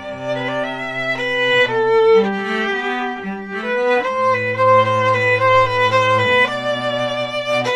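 Violin and cello playing a duet in long bowed notes, the violin above and the cello holding low notes beneath it.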